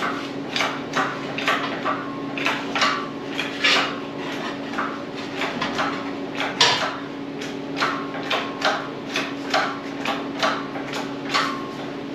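Repeated metallic knocks and clanks, roughly two a second and unevenly spaced, some ringing briefly, over a steady low hum.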